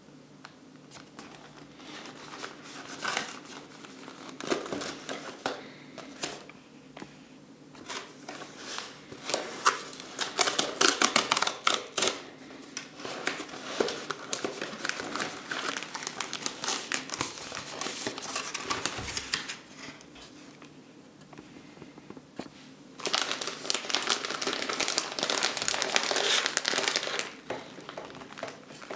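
Hands opening a cardboard burger box along its perforated strip and crinkling the plastic film bag around the microwave burger: irregular crackling and rustling in bursts, densest about a third of the way through and again in a steady stretch near the end.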